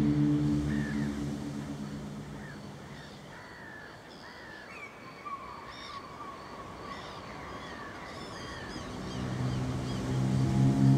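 Birds calling repeatedly in short, curved calls, with a longer whistle-like note around the middle. A sustained low synth or organ-like chord fades out in the first couple of seconds and swells back in near the end.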